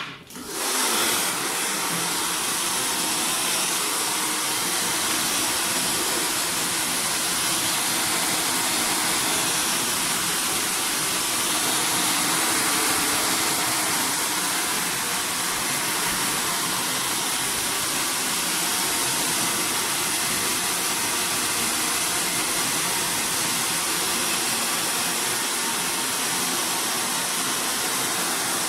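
Handheld hair dryer switched on with a click, then running steadily on hot while blow-drying wet, keratin-treated hair.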